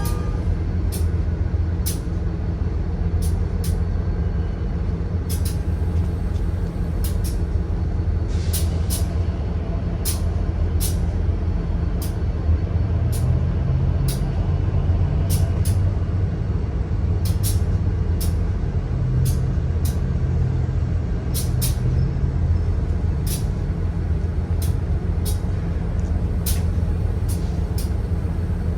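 A train rolling past with a steady low rumble and sharp wheel clacks over the rail joints, often in pairs, every second or so.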